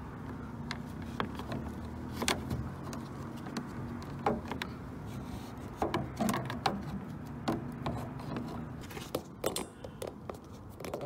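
Plastic windshield air-cowl grille being handled and pressed into place, giving scattered sharp clicks and knocks of plastic, over a steady low hum.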